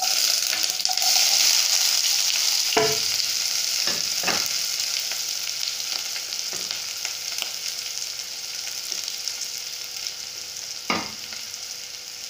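Chopped onions and green chillies dropped into hot oil in a pot: loud sizzling that starts suddenly and slowly dies down as they fry. A few sharp knocks come about three, four and eleven seconds in.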